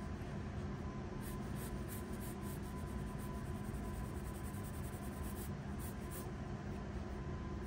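Pencil scratching across sketchbook paper in a run of quick, light strokes from about a second in until about six seconds, over a steady low hum.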